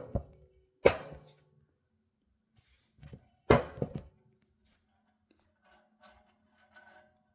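Sharp metallic clicks and clinks of pliers and safety wire being handled. There are three loud clicks, each with a brief ringing, then faint small ticks near the end.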